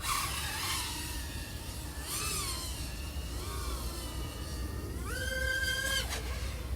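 Whine of an iFlight AOS 3.5 V5 quadcopter's four XING 1504 3100KV brushless motors and 3.5-inch props, rising and falling in pitch as the throttle changes, over a steady low rumble. The pitch swoops up at the start, rises and falls about two seconds in, and holds high for about a second near the end.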